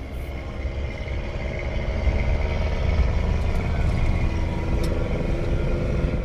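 Motor vehicle engine and road noise, a heavy low rumble that grows louder over the first couple of seconds and then holds steady.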